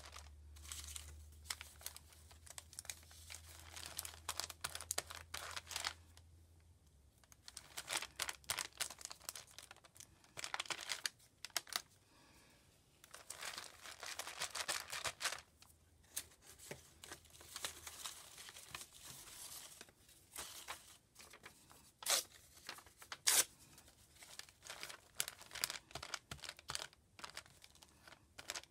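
Paper scraps rustling, crinkling and tearing in irregular spells as they are handled, glued with a glue stick and pressed flat onto notebook pages by hand, with two sharp clicks about two-thirds of the way through.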